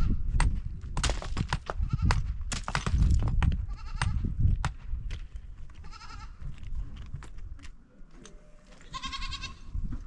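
Goats bleating several times, about four, six and nine seconds in, with the last call the longest. Short knocks and clicks and a low rumble run underneath.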